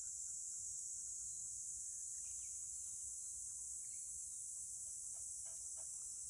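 Steady high-pitched drone of an outdoor insect chorus, with a few faint light taps in the second half.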